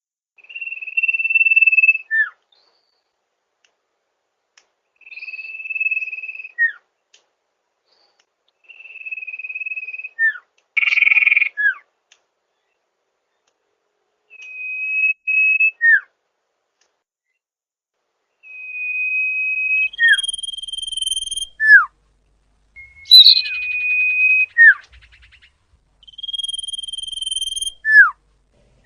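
A sirpu (sirdung) songbird singing a repeated whistled phrase: a clear, steady note held for about a second, then one or two quick notes sliding downward, roughly every four seconds. Twice a short rasping burst comes with the phrase.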